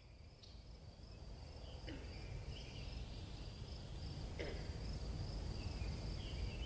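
Nature ambience fading in: a steady high insect trill over a low rumble, with a few scattered bird chirps and two short falling calls.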